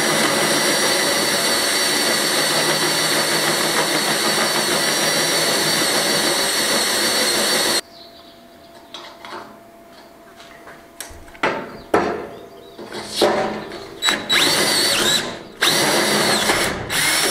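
DeWalt cordless drill driving a 19 mm hole cutter into the metal wall of a smoker barrel. It runs as a steady whine with cutting noise for about eight seconds, then stops suddenly. Several shorter bursts of drilling follow.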